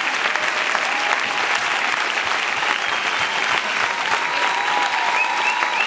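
Audience applauding steadily, a large crowd clapping in a hall.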